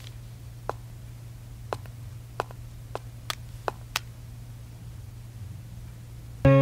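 Quiet room tone with a steady low hum and a handful of faint, irregular clicks. Music comes in near the end.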